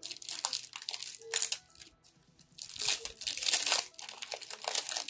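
Foil wrapper of a Pokémon TCG booster pack being torn open and crinkled by hand, in two scratchy stretches with a short lull between them.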